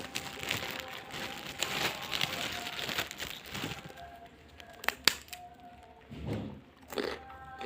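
Close-up crunchy eating sounds: crackling, crunching chewing of crisp food for the first few seconds, then a couple of sharp clicks about five seconds in and a few softer mouth and utensil sounds, over faint background music.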